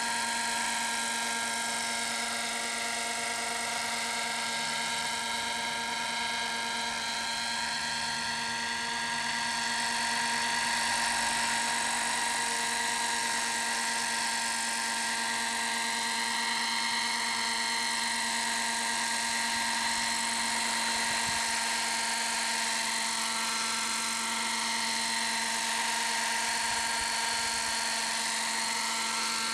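Kyosho Caliber 30 radio-controlled helicopter hovering, its small two-stroke glow engine running with a steady high whine. The pitch wavers slowly up and down as it holds its hover, and the sound swells a little about a third of the way in.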